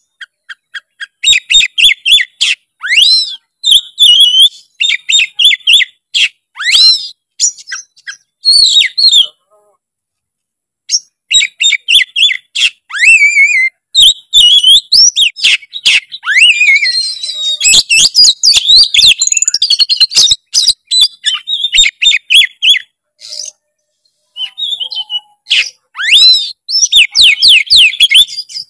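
An oriental magpie-robin (kacer) singing a loud, fast, varied song of chirps, whistles and sweeping trills, full of mimicked phrases (isian). It breaks off briefly twice.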